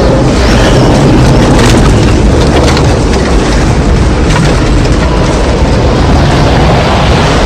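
Loud, distorted roar of tornado wind, a heavy low rumble with crackles and crashes of debris through it.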